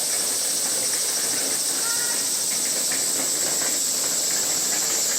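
A steady high-pitched hiss with faint distant voices.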